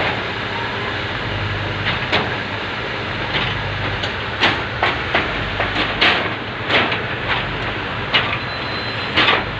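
Truck engine running with a steady low hum, over which come a dozen or so sharp, irregular metallic clicks and knocks as hands work the hydraulic control levers and fittings on a car carrier deck.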